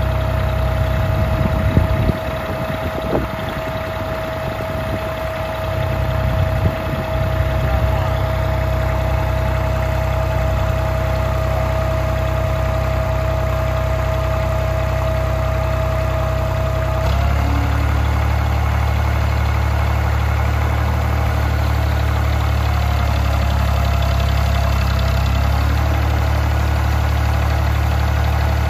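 The Ford 1900 tractor's three-cylinder diesel engine is running steadily at idle. A steady high whine runs alongside it until about two-thirds of the way through, where the whine stops and the engine note shifts. A few louder irregular noises come in the first several seconds.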